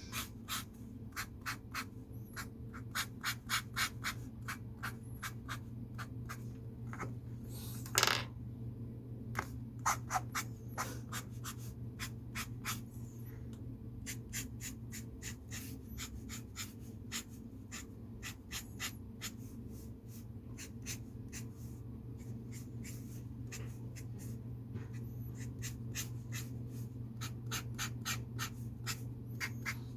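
A pen drawing on paper in short, quick strokes: a long run of taps and scratches at two to four a second, with one longer stroke about eight seconds in. A steady low hum runs underneath.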